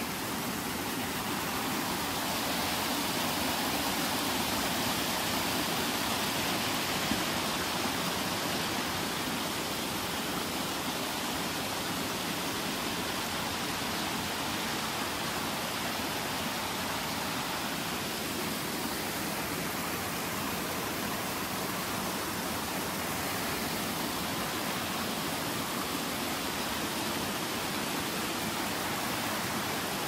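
Mountain stream and waterfall rushing steadily, an even hiss of running water.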